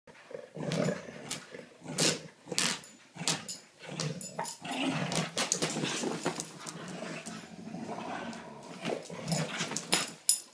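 Doberman Pinschers growling in play while tugging and shaking a fleece blanket between them, the growls coming in irregular bursts.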